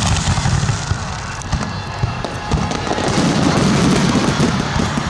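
Fireworks display: dense crackling and popping from bursting shells over low rumbling booms, with a couple of sharper bangs in the first half.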